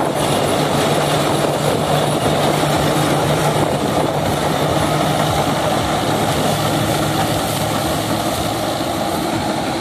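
Mahindra Arjun 555 DI tractor running steadily under load while driving a straw reaper (tudi machine) that cuts and chops wheat stubble into straw. The sound is a steady, loud mechanical din over a constant low engine hum.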